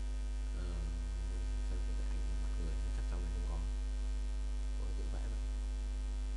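Steady electrical mains hum on the recording, with a few faint, brief murmurs of a voice.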